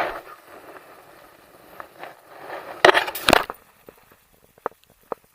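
A loud clatter of knocks about three seconds in, followed by a few light clicks.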